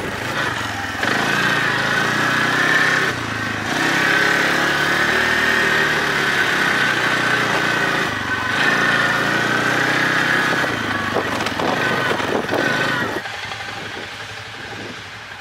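ATV engine running under way, its pitch rising and falling with the throttle; it dies down about 13 seconds in.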